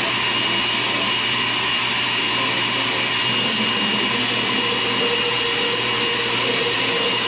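Single-serve countertop blender running steadily, blending a liquid coconut milk and cream mixture without ice, with a constant high whine over the motor noise.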